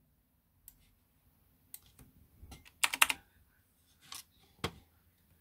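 Scattered clicks of computer keys and mouse buttons, with a quick run of several a little before and after three seconds in.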